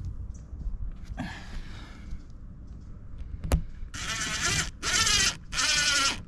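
Cordless impact drill driving a screw into the skylight frame gently, in three short bursts of about half a second each near the end, not cinched tight. A sharp click comes a little past halfway.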